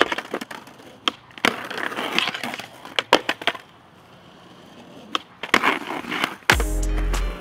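Skateboard wheels rolling on concrete, broken by several sharp clacks of the board popping and landing. Music starts about six and a half seconds in.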